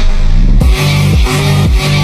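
Loud electronic dance music with a heavy bass line and a steady beat, about two beats a second, the full beat coming in about half a second in.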